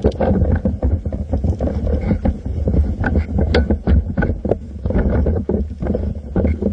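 Heavy low rumble with irregular knocks and rustles from a camera mounted on an airsoft rifle as the rifle is carried and handled.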